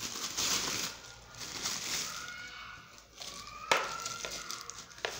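Plastic wrapping around a steam iron rustling and crinkling as it is handled, with one sharp click a little past the middle.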